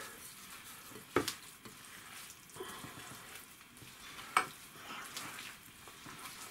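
Wet semolina dough being squeezed and mixed by hand in a glass bowl: a faint, crackly squelching as water is worked in, with two sharp clicks, about a second in and again about four seconds in.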